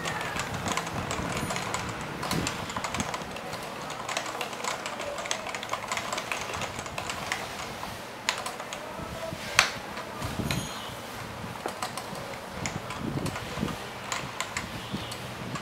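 Typing on a Topre-switch keyboard: a steady run of quick keystrokes, with one noticeably louder stroke about ten seconds in.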